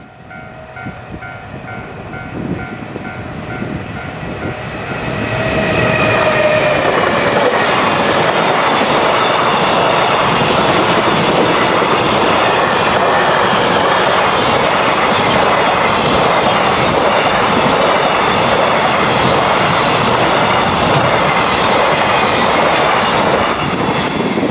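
Japanese level-crossing warning bell ringing in a steady repeating pattern as a high-speed electric freight train approaches. From about five seconds in, the container train passes over the crossing at speed, its wagons making a loud, steady rumble and clatter for almost twenty seconds before it starts to fade near the end.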